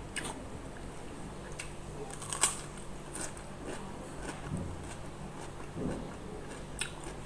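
Close-up eating sounds: a person chewing and biting food, with scattered sharp clicks and small crunches, the loudest about two and a half seconds in, over a faint steady hum.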